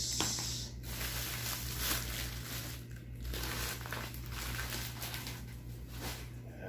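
Plastic bag crinkling and rustling unevenly as it is handled, over a low steady hum.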